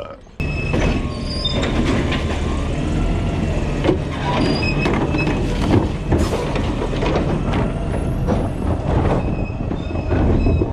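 Garbage truck's engine running steadily while its automated arm works the bins, with short high squeals and scattered metal knocks over the engine.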